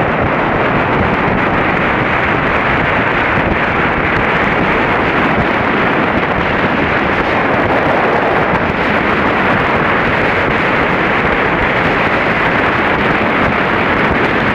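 Strong wind buffeting the camera's microphone, a loud, steady rush that covers everything else, on the open deck of a boat heading into the wind.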